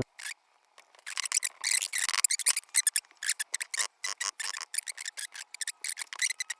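Picked Assa 600 euro cylinder lock being handled as its plug is turned: a fast, irregular run of light metallic clicks and rattles.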